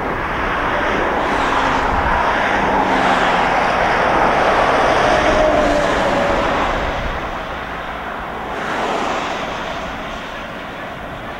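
Motor vehicles passing by on a highway: the noise swells to a loud pass about halfway through and fades, and a second, weaker pass follows a few seconds later.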